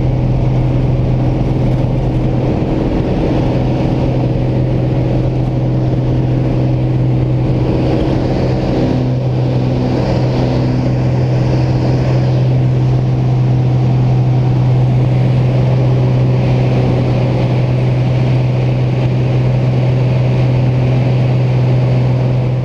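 Piston engine and propeller of a high-wing light aircraft, heard from inside the cabin, running steadily at high power with a strong constant low hum.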